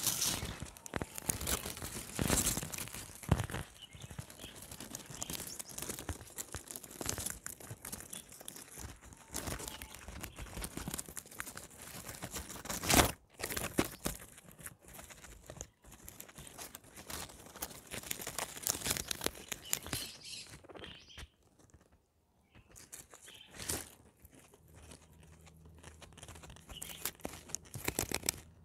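Guinea pigs chewing and tearing at plants: a dense, irregular crunching and crackling, with one sharp snap about halfway through and a short lull about three quarters of the way in.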